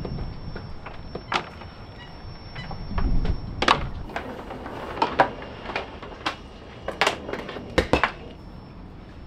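A string of irregular sharp clicks and knocks, hard small parts and hand tools being handled and fitted, most of them packed into the middle and later part.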